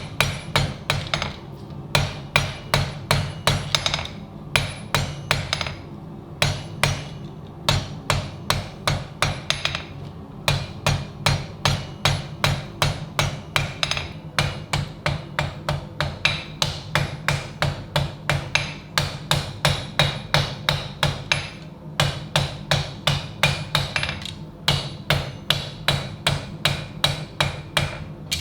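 Hand hammer striking steel in quick, even runs of about three blows a second, with short pauses between runs, over a steady low hum.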